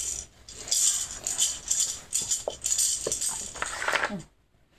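A baby's rattle toy shaken in repeated bursts, cutting off about four seconds in.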